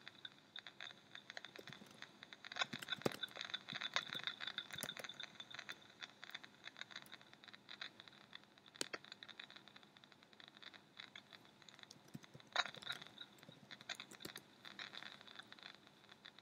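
Faint scratching and rustling with scattered sharp clicks over a thin steady hiss, heard through the received amateur-TV sound channel; the rustling is busiest a few seconds in, with single louder clicks about halfway and near the end.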